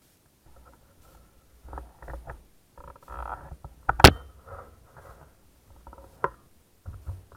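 Handling noise from a rifle-mounted GoPro in its case: scattered rubbing and knocks, with one sharp, loud click about four seconds in and a smaller click a couple of seconds later.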